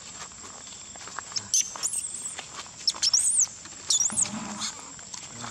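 Baby macaque giving a run of high-pitched squeals, each rising and falling in pitch, several in a row over about three seconds in the middle.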